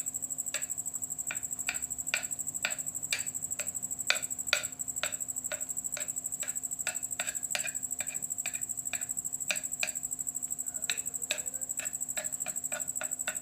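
A steady, high-pitched, fast-pulsing cricket trill runs behind light irregular ticks and taps from hands folding the dough on the rolling board.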